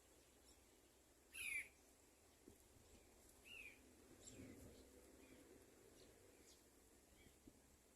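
Faint, short chirps from yellow-vented bulbul nestlings calling for food: a few brief calls that fall in pitch, the loudest about a second and a half in, another about two seconds later, then fainter ones.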